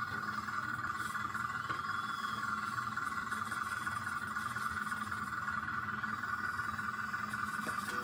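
Steady chorus of insects, a continuous high-pitched drone that does not change in level.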